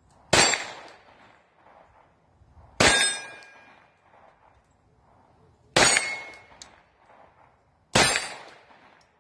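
Four .22 LR pistol shots from a Glock 44, fired slowly about two to three seconds apart, each followed by the short metallic ring of the steel targets.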